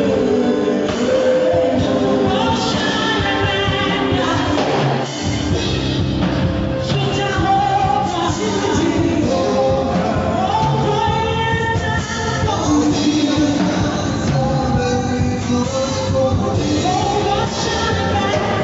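Contemporary Christian pop song: a lead singer over a full rock-style band, playing loudly and steadily throughout.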